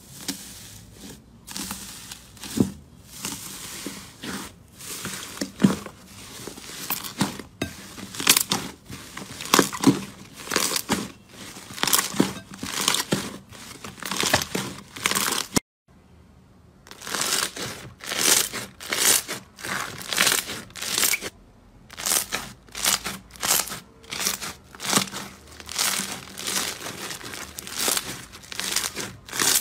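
Hands crinkling aluminium foil pressed over slime, then kneading slime with crackling, tearing sounds. After a short break about 16 seconds in, fluffy white slime is squeezed in a steady rhythm of crunches, about three every two seconds.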